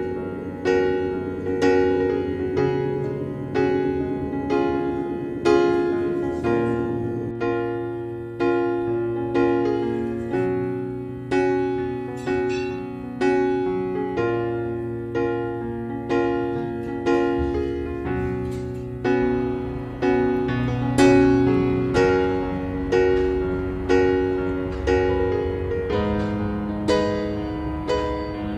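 Background solo piano music, notes struck at a steady pace of about one a second.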